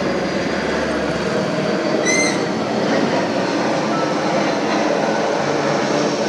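Steady, fairly loud background noise with no speech, and a single short high-pitched squeak a little over two seconds in.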